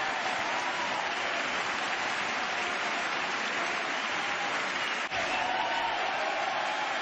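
Crowd applauding steadily, with a momentary break about five seconds in.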